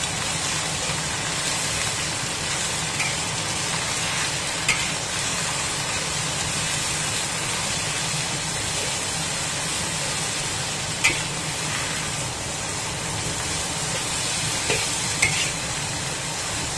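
Water spinach sizzling in hot oil in a wok as it is stir-fried with a metal spatula. Sharp clicks of the spatula against the wok stand out a few times.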